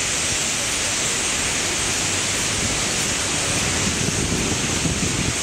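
Massed chatter of a roost of thousands of common starlings, merging into a steady high hiss without pause.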